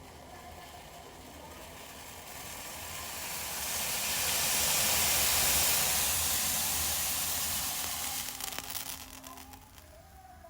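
Tea boiling up in a pan with a hiss that swells over a few seconds, is loudest about halfway, then dies down with some crackling near the end.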